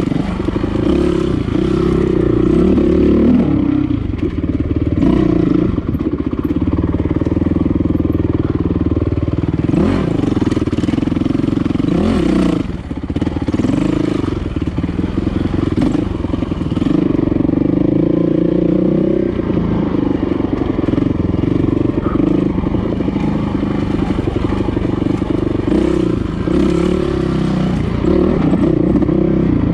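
Dirt bike engine running as the bike is ridden along a rough single-track trail, its pitch rising and falling with the throttle. There are a few short knocks from the bike over the ground.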